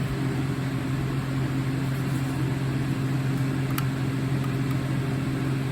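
Steady low hum of a running motor or appliance, unchanging throughout, with a single light click about two-thirds of the way through.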